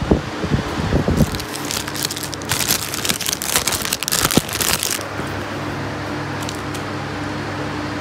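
Plastic produce bags crinkling and rustling as they are handled, with a few dull bumps at the start. The crinkling runs from about a second in to about five seconds, then only a steady hum remains.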